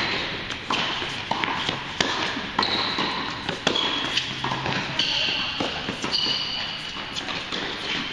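Tennis rally in doubles on an indoor hard court: a string of sharp pops from rackets striking the ball and the ball bouncing on the court, several a second at an uneven pace.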